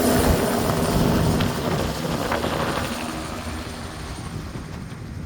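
Bell 505 Jet Ranger X helicopter running, with its rotor and turbine noise growing steadily fainter.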